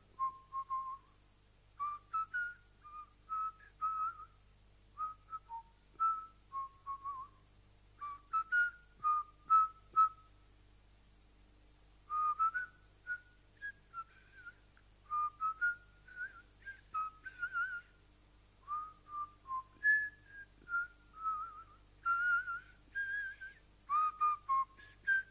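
A person whistling a wandering tune in short notes that slide from one to the next, in phrases broken by short pauses.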